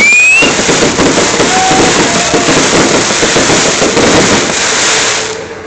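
Fireworks display: a dense, loud crackle of many rapid small bangs merging together, with a short rising whistle right at the start. The crackling dies away shortly before the end.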